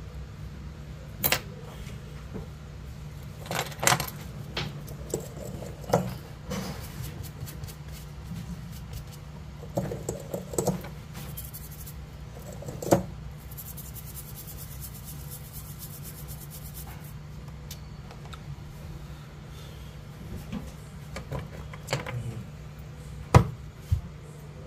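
Irregular small metallic taps and clicks of tweezers and a BGA reballing stencil being handled on the repair bench, over a steady low hum, with a short high hiss around the middle and the sharpest tap near the end.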